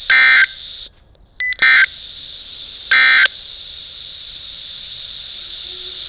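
Three short bursts of SAME digital data tones, the end-of-message code that closes a NOAA Weather Radio alert, from a handheld weather radio's small speaker. A short beep falls between the first two bursts, and steady static hiss runs under them.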